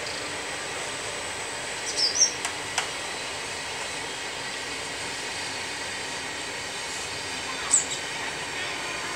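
Train of flatcars rolling past with a steady rumble of wheels on the rails. Short high bird chirps come through about two seconds in and again near the end.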